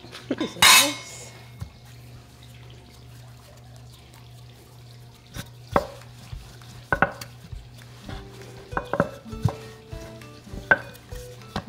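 Small wooden rolling pin knocking and rolling on a floured wooden cutting board as dough is rolled out, with a sharp brushing sound about a second in. Under it runs the low steady hum of a pet water fountain, and soft background music comes in about two-thirds of the way through.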